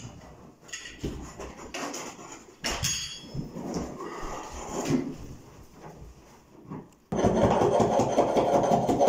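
Knocks and clatter of carpet-fitting tools being picked up and handled on a carpeted floor, with footsteps. About seven seconds in, a loud steady mechanical noise starts abruptly and keeps going.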